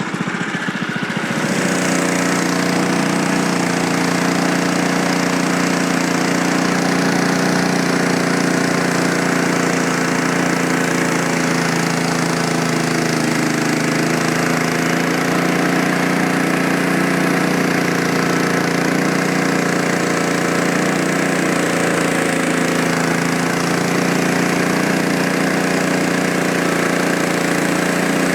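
Frontier OS23 bandsaw sawmill's small engine running steadily at speed while the mill saws a log. It comes up to full speed about a second and a half in, and the pitch sags slightly about halfway through.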